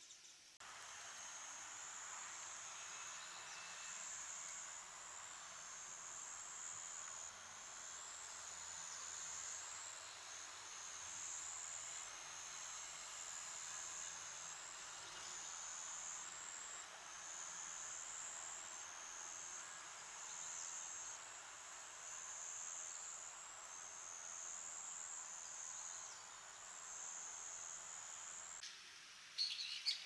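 Insects trilling in a field: a high, steady chirring that shifts in roughly one-second phrases, over a soft outdoor hiss. Near the end it stops and a few sharp clicks follow.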